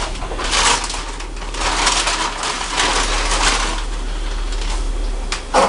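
Rustling and crunching in irregular bursts as french fries and chicken are handled to start cooking, with a short louder clatter near the end.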